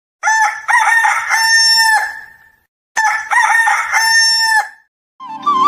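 A recorded rooster crow, played twice with a short gap, the two crows matching each other closely. Flute music begins just before the end.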